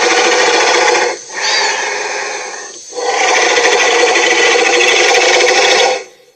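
Cartoon sea monster sound effect: a loud, buzzy growl that breaks off after about a second, goes on quieter with a brief rising squeal, then comes back loud for about three seconds and cuts off sharply.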